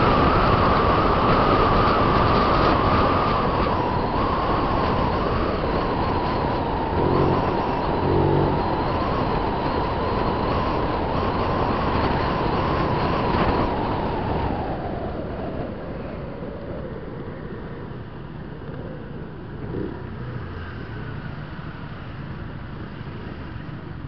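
Wind rushing over the mic of a Honda Click 125i scooter riding at speed, with its engine and belt drive whining steadily. About halfway in, the whine and wind die down as the scooter slows. Two short horn beeps come about a third of the way in.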